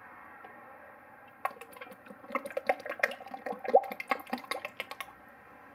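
Motor oil glugging out of a tipped quart bottle into a funnel in the engine's oil filler, a rapid, irregular run of gurgles that starts about a second and a half in and stops about five seconds in.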